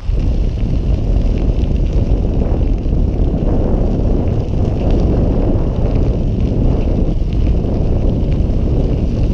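Wind rushing over the microphone of a camera carried on a moving bicycle, a steady low rumble, with the bike tyres rolling over a gravel trail.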